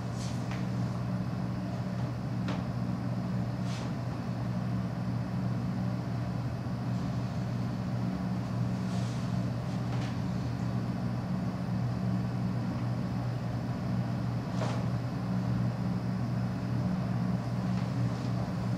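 Steady low hum of room tone with a faint high whine, broken by a few faint, brief scuffs of sneakers shifting on a wooden floor.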